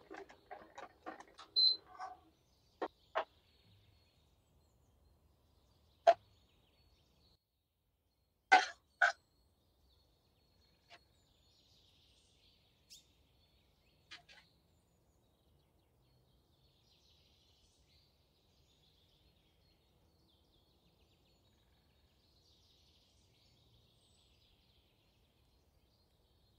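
Silicone whisk working a thick sauce in a stainless-steel pot: a quick run of small clicks and scrapes. Then come a few separate sharp knocks of kitchen utensils, the loudest two about half a second apart, and after that only a faint hiss.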